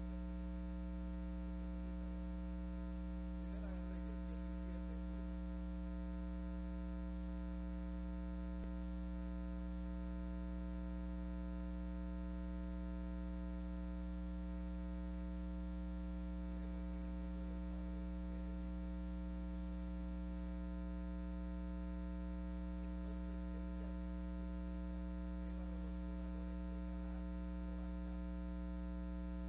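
Steady electrical mains hum in the audio feed: a constant low buzz with a ladder of higher overtones.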